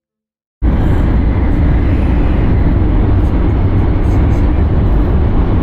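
Shinkansen bullet train running at high speed, heard from inside the carriage: a loud, steady low rumble with a rushing noise over it, starting abruptly about half a second in.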